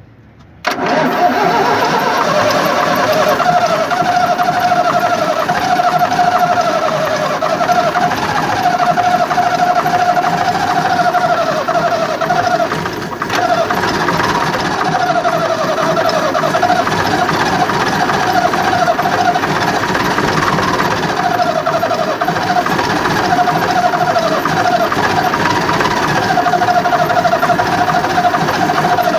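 FNM 180 truck's diesel engine being cranked hard by its starter motor on a 36-volt hook-up, after about three years standing. The starter whine rises and falls over and over as the engine turns over without running on its own, with a brief dip about 13 seconds in.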